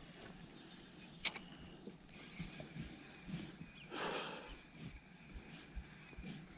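Quiet pond-side outdoor ambience with a faint steady high tone, one sharp click about a second in, and a brief rustle near four seconds in.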